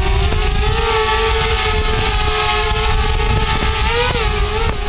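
DJI Spark mini quadcopter's propellers whining at a steady pitch just after a palm launch, the pitch wavering briefly near the end.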